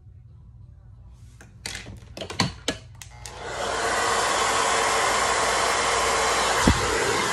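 A hair dryer is switched on about three seconds in, after a few clicks and knocks of handling, and then blows steadily.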